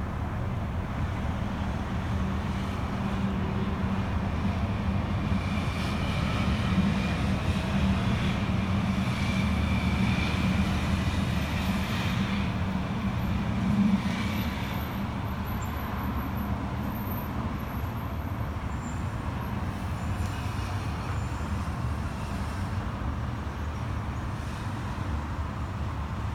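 Helicopter rotor and engine noise overhead: a continuous low rumble that grows louder to a peak about 14 seconds in, then eases off, with a faint high whine while it is loudest.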